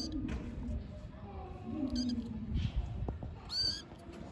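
A young kitten mewing: three short, high-pitched mews, one at the start, one about two seconds in and one about three and a half seconds in.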